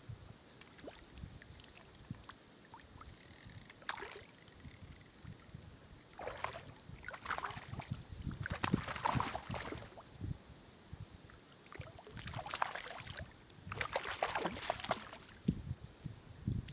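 Water splashing and sloshing in a mountain stream, in irregular bursts of a second or more, over a low rumble.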